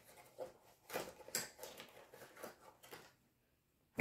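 Hands handling the cardboard insert of a GoPro camera box: scattered rustles and light taps of card and small plastic parts, loudest about a second in, then quiet for the last second.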